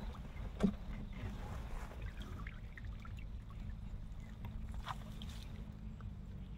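Faint water trickling and lapping around a moving raft, with a light knock under a second in and another about five seconds in.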